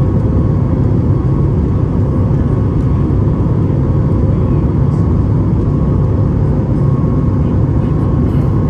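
Steady low rumble of a Boeing 737 MAX 9's CFM LEAP-1B turbofan engines running at climb power, heard inside the cabin beside the wing. A faint steady hum of engine tones sits over the rumble.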